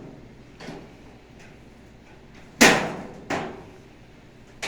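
A few sharp knocks from the dryer cabinet as its top panel is worked loose and raised. The loudest comes about two and a half seconds in, a smaller one follows just after, and another comes near the end.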